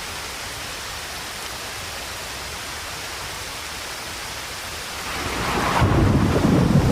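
Steady rain hiss, then a low rumble of thunder that builds about five seconds in and rolls on louder near the end.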